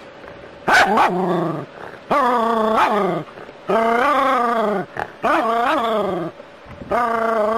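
A small terrier gives a run of drawn-out yelping barks at a snake in the water: about five long calls, each roughly a second long, with short pauses between them.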